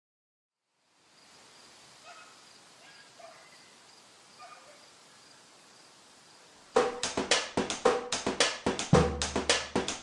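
A faint outdoor hiss with a few short distant dog barks. About two-thirds of the way in, a soundtrack of music cuts in abruptly with a quick, choppy drum beat, the loudest sound here.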